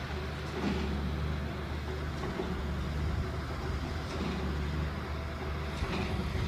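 Engine running steadily with a low, even hum.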